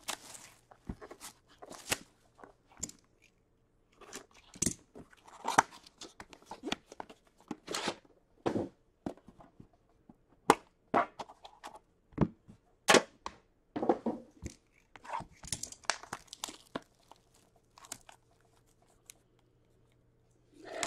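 Plastic shrink-wrap being torn and crinkled off a hockey card box, with irregular sharp crackles and clicks as the metal tin and a plastic-wrapped card pack are handled.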